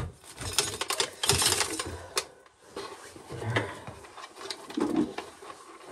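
Corn sheller working an ear of corn: quick, uneven mechanical clicking and rattling as the ear is fed through and kernels are stripped off.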